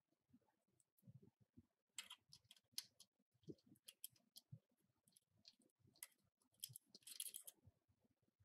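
Faint scattered clicks and small scrapes of metal nuts and washers being fitted and threaded by hand onto the mounting bolts of a sewing-machine servo motor's bracket.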